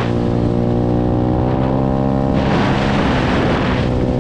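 125cc pit bike engine with a Nibbi carburettor running hard at a steady high pitch at about 40 mph. About halfway through, wind rushes over the microphone for a little over a second.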